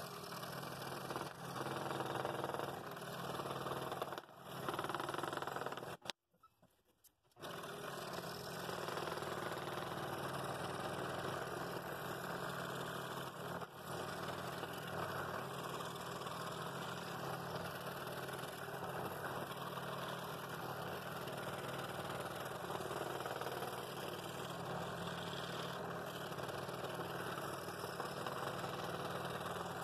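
Scroll saw running steadily, its reciprocating blade cutting through a stack of half-inch aspen and walnut. The sound breaks off completely for about a second around six seconds in, then carries on.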